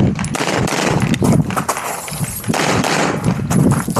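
Semi-automatic pistol with a red-dot sight fired in rapid succession, several sharp shots a second.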